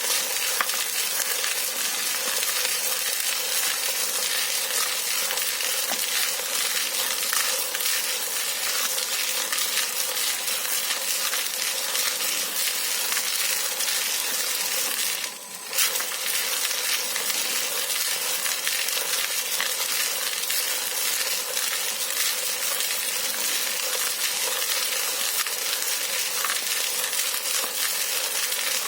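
Benchtop tumbling machine running: small metal parts and tumbling media rattling continuously in the turning drum over a steady motor hum. The sound drops out briefly about halfway through.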